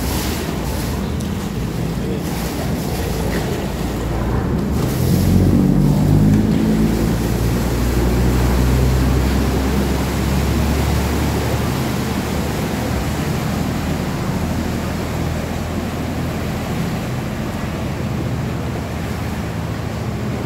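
Canal boat taxi's engine revving up as the boat pulls away from the pier, loudest about five seconds in, then running on lower over the churning wash from its propeller.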